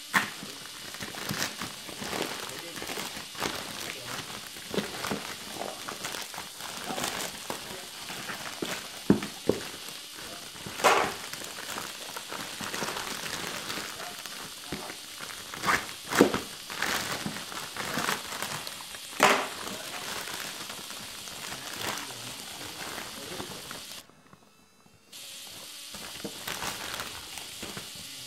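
Plastic mailer bag and plastic wrapping crinkling and rustling as they are cut open with a knife and pulled apart, in irregular crackles with several louder rips. Near the end the sound briefly drops out to near silence for about a second.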